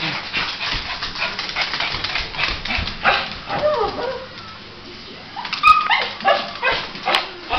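Small dog barking and yapping repeatedly in short, sharp calls, with a quick run of high yaps in the last two seconds.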